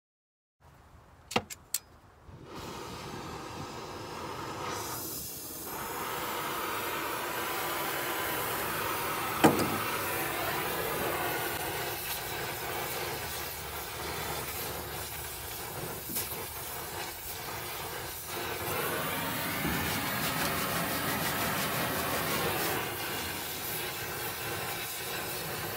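Gas torch flame hissing steadily as it is played over a Jeep CJ's steel floor pan, burning off the undercoating. A few sharp clicks come before the hiss starts, and there is a single sharp knock about nine and a half seconds in.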